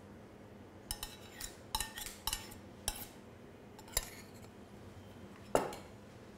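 Metal utensils clinking against a stainless steel mixing bowl: about seven light, separate clinks, each with a short ring, as a spoon and small steel cup are handled over the bowl.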